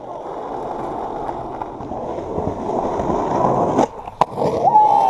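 Skateboard wheels rolling on pavement, growing louder as the board approaches, then the sharp crack of the tail popping an ollie about four seconds in and the slap of the board landing a moment later.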